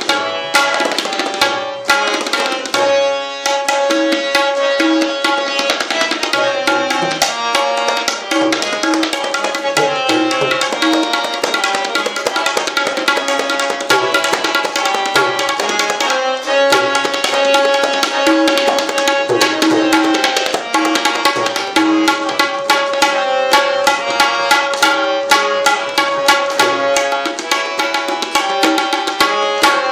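Tabla solo in tintal: a fast, dense run of strokes on both drums of the tabla pair, with a harmonium holding a repeating melody (lehra) underneath.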